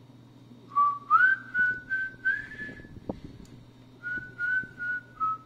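A person whistling a tune in two short phrases of held notes, with a brief gap between them. A light click of small metal parts falls in the gap.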